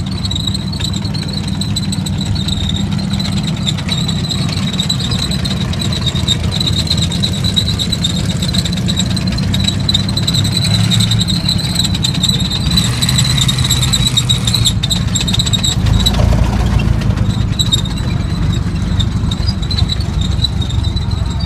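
WWII tracked armoured vehicles, a Stuart light tank and an M4 Sherman followed by a tracked artillery tractor, driving past: a steady low engine rumble with a high, steady squeal that stops about two-thirds of the way through. The rumble grows heavier soon after.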